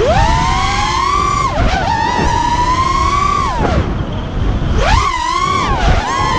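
The quadcopter's four 2206 2200kv brushless motors spinning DAL 5x4x3 tri-blade props: a high whine that climbs sharply as the throttle is punched, holds, drops away about three and a half seconds in and climbs back near five seconds. A rough rushing noise runs underneath.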